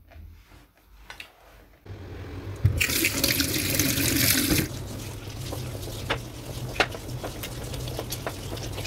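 Kitchen tap running into a stainless steel sink as a lemon is rinsed under the stream, a loud even rush for about two seconds a few seconds in. Afterwards a quieter steady noise with scattered small clicks, over a low hum.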